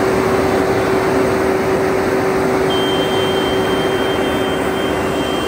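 Large Fendt tractor's diesel engine running steadily at close range, a loud even drone with a constant whine in it; a thin high whistle joins about halfway through.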